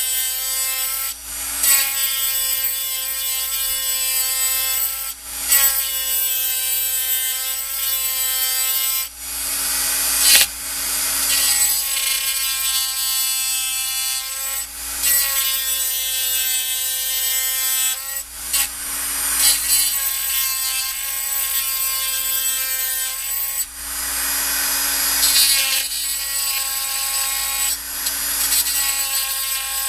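Small high-speed rotary tool running with a steady whine as its bit grinds at the throttle plate and shaft of a four-barrel carburetor base plate. Several times the whine drops out and gives way to a rougher grinding noise as the bit bears down on the metal.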